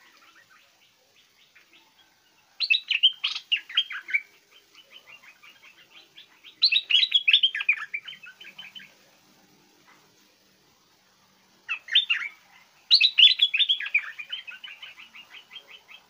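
Stripe-throated bulbul singing: four loud phrases of quick bubbling notes, each starting high and falling, the last phrase the longest, with soft chatter between them.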